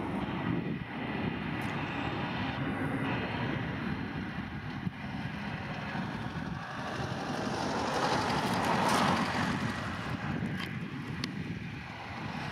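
Jet engines of a British Airways Airbus A320-232 (IAE V2500 turbofans) running with a steady rush as the airliner taxis along the runway, swelling louder about eight to nine seconds in and then easing.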